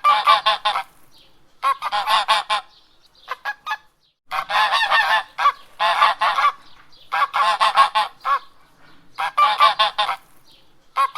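Domestic geese honking in quick runs of several honks each, the runs coming every second or two with short pauses between.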